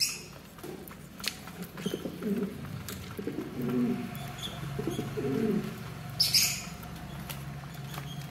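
Domestic pigeons cooing in low, rolling phrases, with scattered light taps. A short high-pitched bird call cuts in about six seconds in.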